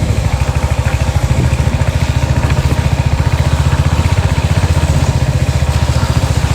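Motorcycle engine running with a steady, even, rapid beat.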